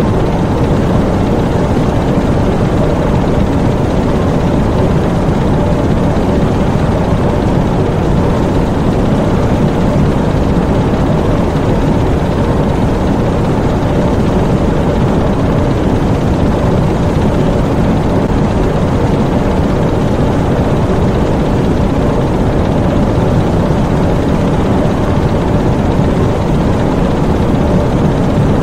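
Diesel engines of a submarine engine room running steadily: a loud, unbroken low drone with no changes.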